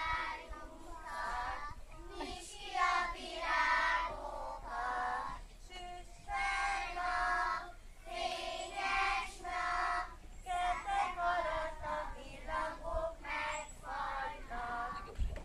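A group of young kindergarten children singing a song together in unison, phrase after phrase with short breaks between them.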